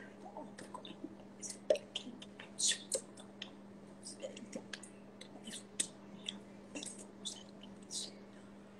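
Mouth sounds of a person silently mouthing words: soft lip smacks, tongue clicks and breathy whispered hisses, scattered irregularly over a faint steady hum.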